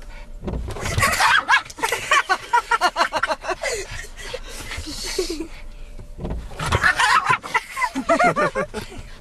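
Hearty human laughter in two bouts of rapid, broken 'ha-ha' pulses, one starting about a second in and another past the middle, each preceded by a low thump.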